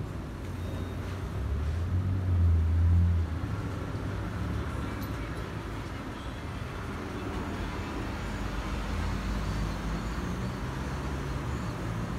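Airbus A320-216's CFM56 jet engines heard as a distant, low, steady rumble as the airliner passes and moves away overhead, with a louder low drone swelling briefly about two seconds in.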